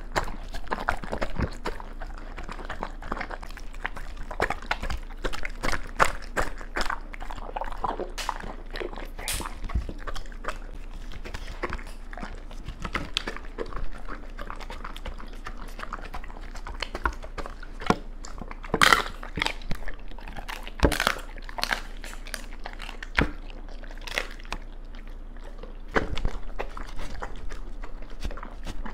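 Doberman eating a raw meal from a plate: wet chewing and licking, with many sharp, irregular clicks of teeth and tongue against the plate. A few louder clicks come about two-thirds of the way through.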